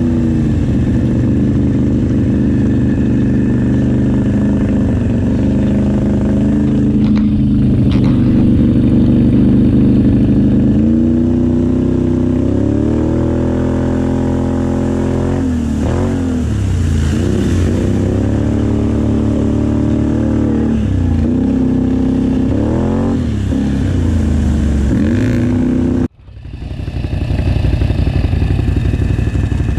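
Can-Am Outlander X mr ATV engine running under throttle while riding through shallow river water, its pitch rising and falling several times as the throttle is worked. The sound cuts out abruptly for a moment near the end, then a steadier engine note comes back.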